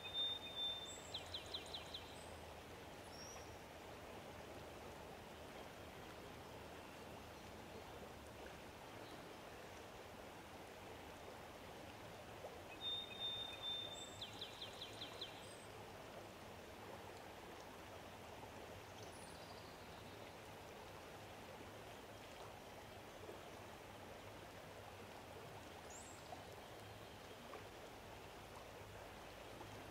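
A songbird sings twice, about thirteen seconds apart: each song is a short steady high whistle followed by a quick trill of about seven notes. Underneath runs a steady soft rushing like flowing water.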